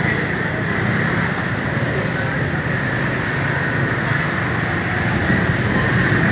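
Steady background noise of a market: a continuous low hum with a hiss over it, unbroken and without distinct events.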